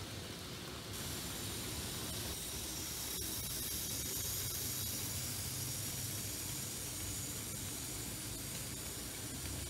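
Z-scale model train, a BR 50 steam locomotive model pulling a short goods train, running along the track. It makes a steady hiss with a low hum that swells in the middle as it comes closer.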